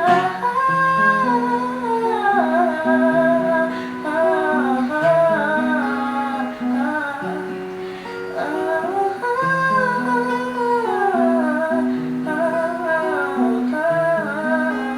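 Acoustic guitar playing a chord pattern under a wordless sung melody of hummed or vocalised 'oohs' with no lyrics.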